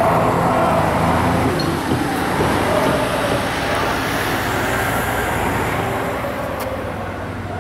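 Road traffic passing close by: engine and tyre noise as a police van drives past, easing off toward the end as a city bus approaches.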